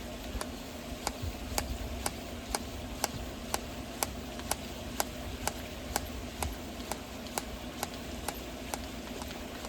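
Small hand ball pump being worked to inflate a tetherball through an inflation needle, giving a sharp click on each stroke, about two a second, in a steady rhythm.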